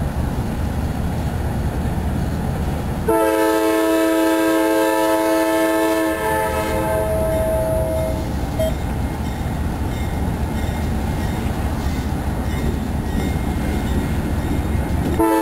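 Approaching CSX diesel freight locomotives rumbling, with a multi-tone air horn sounding about three seconds in and held for several seconds before trailing off. The horn sounds again near the end.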